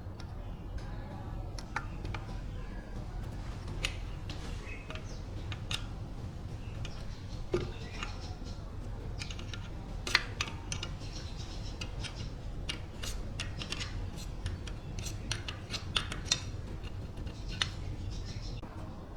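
Hand tools and small metal parts clinking and clicking at irregular moments over a low, steady hum, as in bench work on a metal machine.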